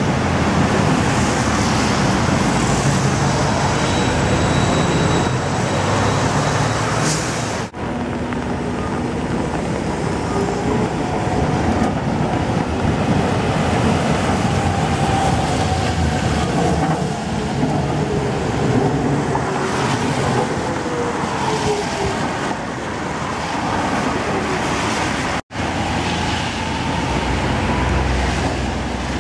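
Hiroshima street trams running on wet street track amid road traffic, with a steady rush of tyres on wet pavement and a few slow rising and falling whines. The sound breaks off sharply twice.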